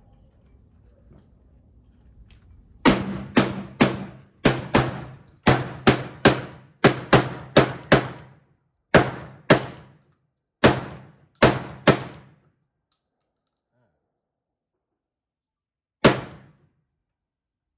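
Gunshots at an indoor range: a fast string of about twenty shots, roughly two a second, each with a short ringing echo off the walls, then one more shot a few seconds later.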